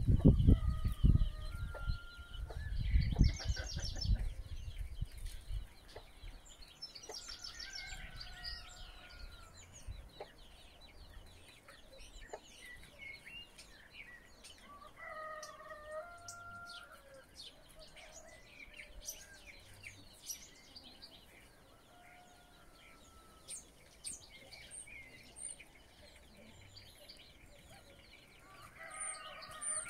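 Domestic fowl calling in the background: short pitched calls repeated every several seconds, with small birds chirping and trilling between them. A low rumble covers the first few seconds.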